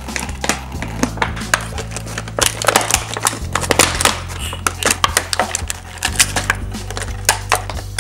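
Background music with a steady low bass line, over many quick clicks and crackles of a cardboard box and plastic packaging being handled as a toy set is unpacked.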